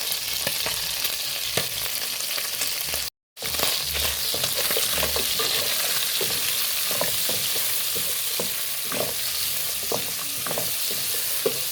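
Beef and onion sizzling as they fry in cooking oil in a pot, with a spoon clicking and scraping as it stirs. The sound cuts out completely for a moment about three seconds in.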